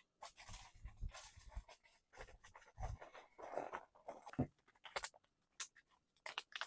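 A run of short, irregular rustles and light knocks.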